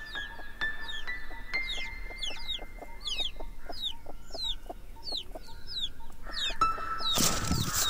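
Birds chirping in quick, high, falling calls several times a second, over a run of short low ticks. Background music holds steady notes that step upward, and a rushing swell rises near the end.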